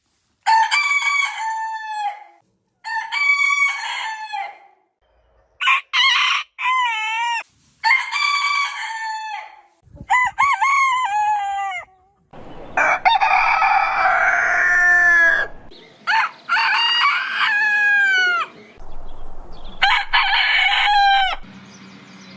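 Roosters crowing, about eight separate crows one after another, each lasting one to three seconds, with short silences between them. One crow near the middle is longer and rougher than the rest.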